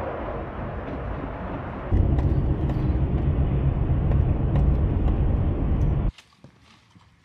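Vehicle road and engine noise while driving, a steady rumble that gets much louder and deeper about two seconds in. It cuts off abruptly about a second before the end, leaving only faint clicks.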